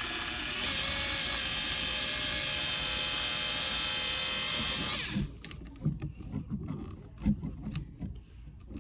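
Power screwdriver running steadily for about five seconds as it backs out a screw, then winding down, followed by light clicks of the screw and parts being handled.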